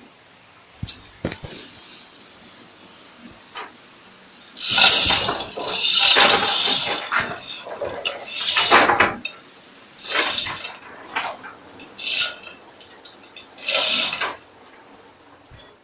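Metal chain of a hand chain hoist clattering and clinking in repeated spells as it is hauled, one long spell and then several shorter ones, to let water in to the mill's Francis turbine.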